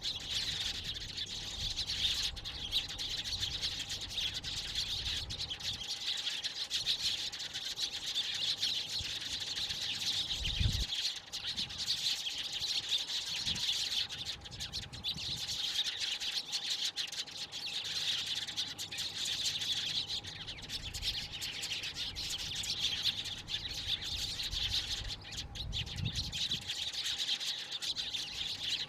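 Flock of Eurasian tree sparrows chirping continuously, many calls overlapping in a dense, steady chorus.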